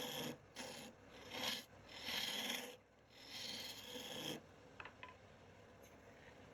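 A tool rasping against wood in about five separate strokes, each half a second to a second long, then a quieter stretch with a few light clicks.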